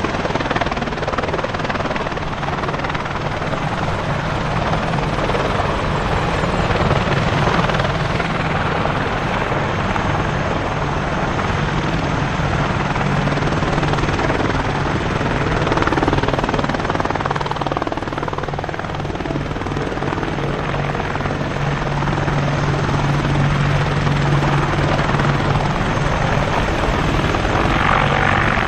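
AH-64D Apache attack helicopters running, their rotors and twin turboshaft engines making a loud, steady noise with a low hum that grows stronger in the second half.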